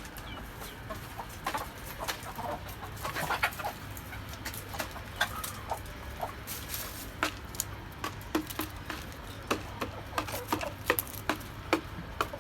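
Chickens clucking, with many short, separate calls and clicks over a low steady hum.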